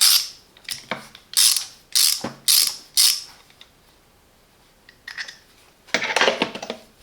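A 72-tooth reversible socket ratchet being swung back and forth, its pawl clicking over the teeth in about five short runs during the first three seconds. After a pause there is a short rustle of handling near the end.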